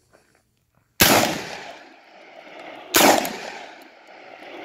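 Two 12-gauge shotgun shots about two seconds apart, each trailing off in a long echo.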